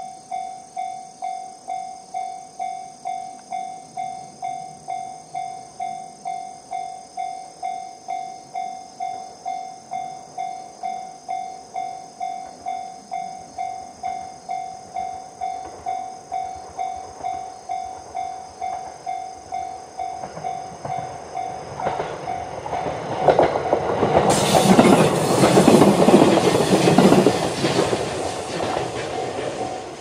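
Japanese level-crossing alarm ringing its JR standard electronic tone about twice a second. From about 22 seconds in, a JR East EV-E301 series battery-electric train passes: its wheels clatter over the rails, loudest for several seconds, then fade. The alarm stops at the very end as the train clears the crossing.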